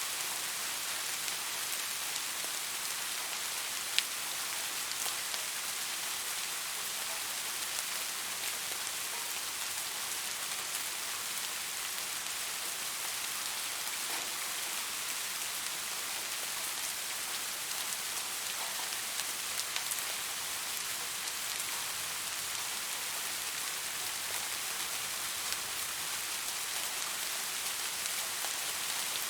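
Steady rain falling: an even hiss of many drops with scattered ticks of single drops, one sharper tick about four seconds in.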